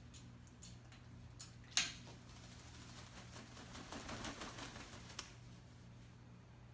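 African grey parrot splashing in a small water bowl while bathing: a few light clicks, a sharper splash about two seconds in, then about three seconds of rapid small splashes and pattering droplets.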